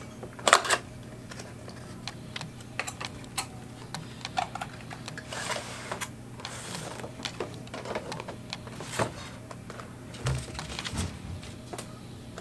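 Model train packaging being handled: a cardboard sleeve slid off and a clear plastic box moved about, giving scattered clicks, taps and rustles, with a sharp knock about half a second in.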